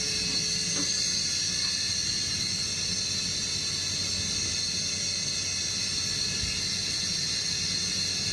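A steady, even hiss that does not change, strongest in the high range.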